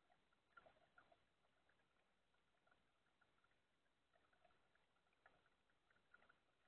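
Near silence, with faint, scattered small splashes and drips of water from kayak paddling.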